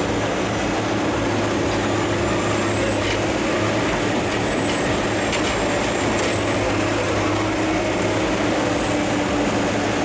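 Heavy wood-processing machine running under load with a steady engine growl and a thin high whine, broken by a few sharp cracks of timber.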